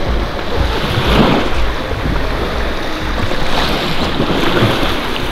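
Wind buffeting the microphone over lapping sea water, with water splashing about a second in and again past three and a half seconds as a capsized sea kayak is rolled back upright.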